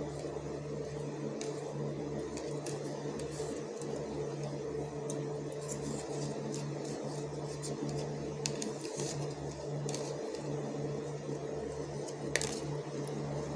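A steady low mechanical hum, with scattered faint clicks and ticks.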